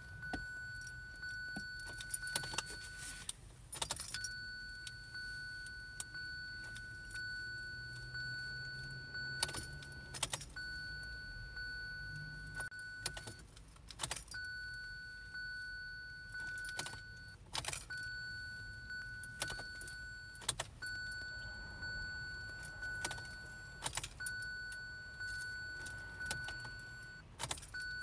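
Ignition key and key ring jangling and clicking as the key is turned over and over, about every three to four seconds, with no engine cranking: the 2017 Kia Sorento will not start. A steady high warning tone from the car sounds between the turns and breaks off at each one.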